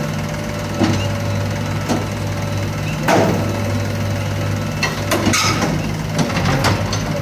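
Heavy diesel engine running steadily, with a string of sharp knocks and clanks, several close together about five seconds in.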